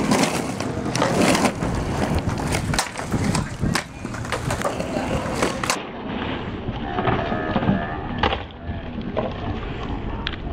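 Skateboard on concrete: wheels rolling, with many sharp clacks of the board popping and landing in the first half. After a change of shot about six seconds in, the board scrapes along a concrete ledge and rolls on, with fewer clacks.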